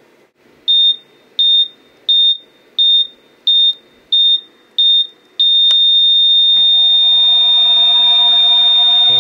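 Electronic beeping: seven short, high beeps about two-thirds of a second apart, then a single long unbroken beep held for nearly four seconds, with soft music coming in beneath it.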